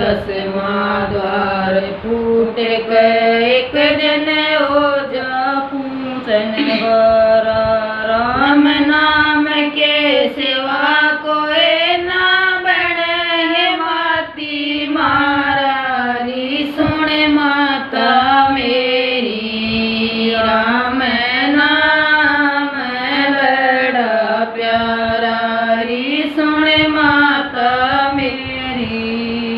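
Two women singing a Hindi devotional bhajan together in continuous melodic phrases, with short breaths between lines.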